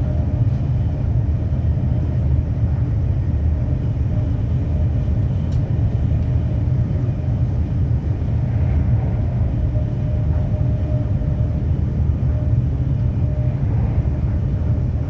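Steady low rumble of a vehicle in motion, with a faint steady hum above it.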